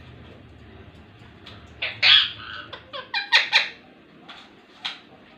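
Ringneck parrot giving a quick run of short squawks and chattering calls about two seconds in, then one more short call near the end.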